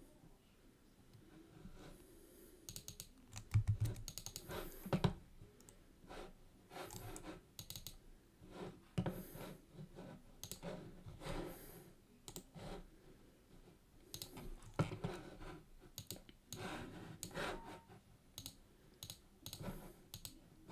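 Quiet, irregular clicking of a computer keyboard and mouse as someone types and clicks, with a few louder knocks a few seconds in.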